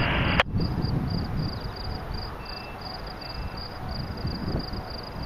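Insect chirping in a steady row of short high pulses, about three a second, over a low rumble of wind on the microphone. Just under half a second in, a hiss stops abruptly with a sharp click.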